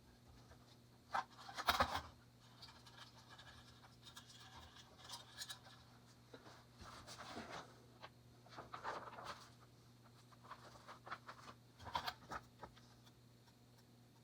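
Light, irregular scrapes and clicks of something being handled, loudest just under two seconds in and again around twelve seconds, over a faint steady hum.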